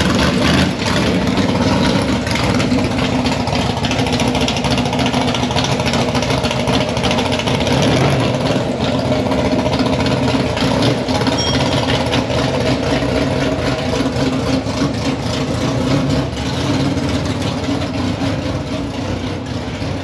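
Car engines running steadily at low revs, close by.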